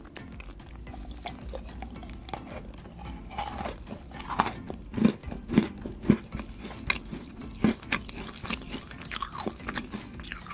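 Close-miked eating: wet mouth sounds and chewing, then a run of sharp, crunchy bites through the middle.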